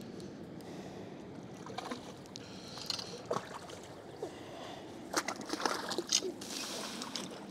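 Hooked rainbow trout splashing and thrashing at the water surface beside a boat, with a run of sharp splashes and a brief rush of water about five to seven seconds in as the landing net scoops it.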